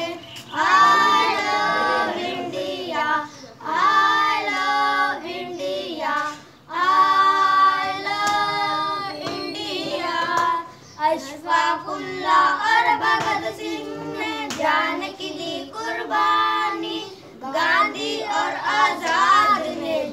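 A group of schoolboys singing a patriotic Urdu song together, unaccompanied, in sung phrases of a few seconds with short breaks between them.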